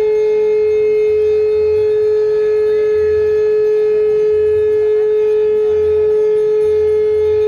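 A loud steady tone held at one unchanging pitch, with a soft low beat roughly once a second underneath.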